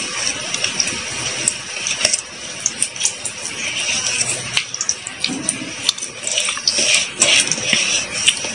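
Batter pakoras deep-frying in hot oil in a kadhai: a steady sizzle with frequent sharp pops and crackles, as fresh batter is dropped in.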